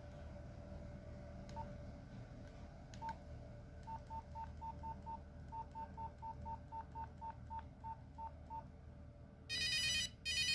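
Nokia 3310 keypad tones: short identical beeps, first two spaced apart and then a quick string of them at about three to four a second, with faint key clicks. Near the end a much louder, bright ringtone starts with two notes.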